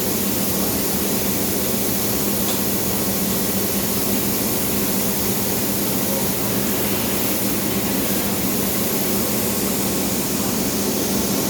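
Absorbent cotton processing machine running steadily: a constant whirring noise with a steady hum.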